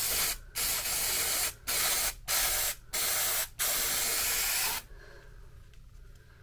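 Aerosol can of spray adhesive hissing in about half a dozen bursts with brief gaps, as it is sprayed along a foam strip; the spraying stops about five seconds in.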